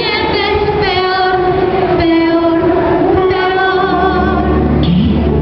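Two women singing a duet into handheld microphones, holding long notes with vibrato, amplified through the stage sound system.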